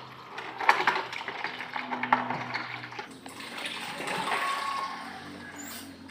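Water running from a tap, with a few sharp clinks and knocks of things being handled.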